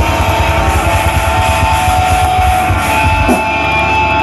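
Live heavy rock band playing loud: electric guitars holding long notes over a dense drum and bass beat.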